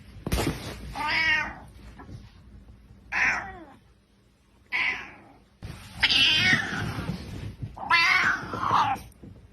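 Domestic cat meowing and yowling in about five separate drawn-out calls, the longest a little past the middle, with a sharp thump right at the start.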